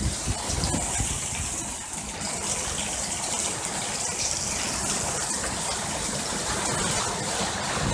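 Heavy rain pouring down steadily, an even hiss.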